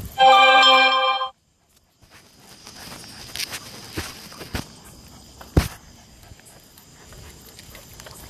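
A loud, steady tone lasting about a second, then a brief moment of dead silence, then the footsteps of a person and two German Shepherds walking on a paved path, with a few sharp clicks.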